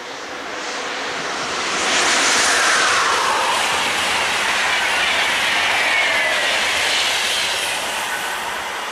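Electric locomotive-hauled Intercity train passing at speed: a rush of wheels on rail that builds, peaks about two seconds in as the locomotive goes by with a falling whine, stays loud while the coaches pass, and fades near the end.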